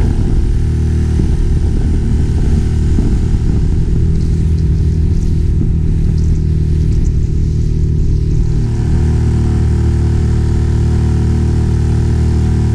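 Small outboard motor running steadily at cruising speed, pushing a heavily laden small RIB through choppy water.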